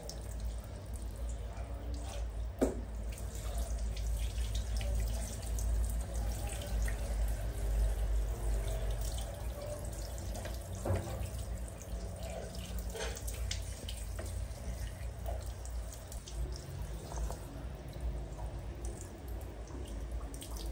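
Water running from a handheld shower head, spraying over a baby monkey and splashing onto a tiled floor. Scattered sharp drips and splashes sound over the steady flow.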